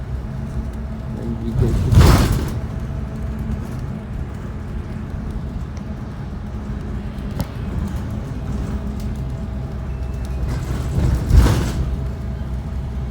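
2018 Blue Bird Vision school bus under way, heard from inside: a steady engine drone and road noise, with two loud whooshes swelling and fading, about two seconds in and near the end.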